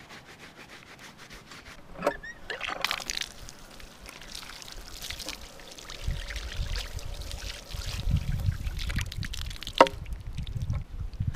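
Water from an old hand pump pouring and splashing over a running shoe held under the spout. There is a sharp metallic clank of the pump handle near the end.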